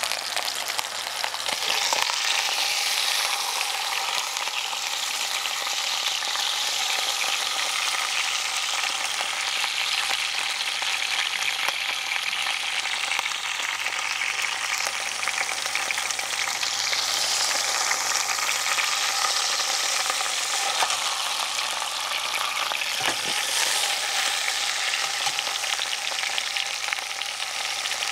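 Prime rib roast searing in a cast-iron camp Dutch oven, fat sizzling and crackling steadily. A couple of faint knocks come as the roast is turned with metal tongs.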